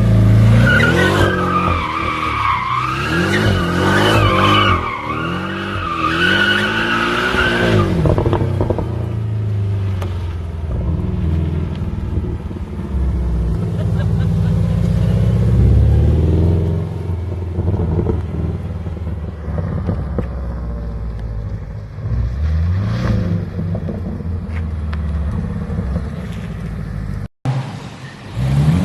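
Porsche sports car engines revving hard as the cars drift and do burnouts, the engine pitch rising and falling again and again. Tyres squeal in wavering high tones through the first eight seconds or so. A brief dropout near the end marks a cut to another car.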